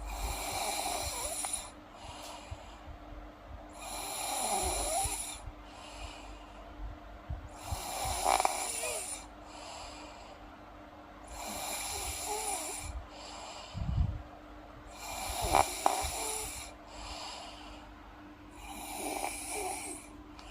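A girl snoring in her sleep: six slow, regular snoring breaths, one about every three to four seconds, with a brief low snort about two-thirds of the way through.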